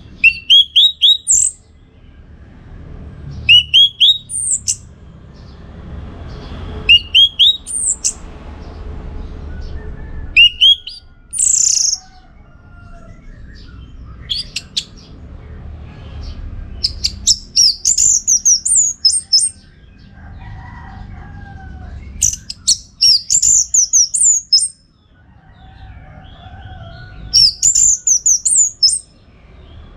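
Orange-headed thrush singing: short, loud, high phrases of quickly gliding notes every few seconds, then longer rapid runs of notes in the second half. A low steady rumble sits underneath, with a few fainter, lower whistles around two-thirds of the way through.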